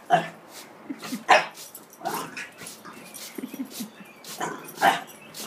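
French Bulldog puppy barking in play, about five sharp barks, the loudest about a second in and near the end.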